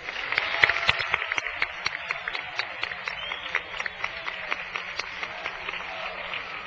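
Audience applauding: many hands clapping, swelling to its loudest about a second in, then carrying on steadily.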